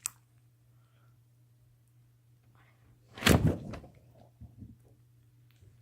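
Slime being handled: one dull thump about three seconds in, then a few faint sticky crackles.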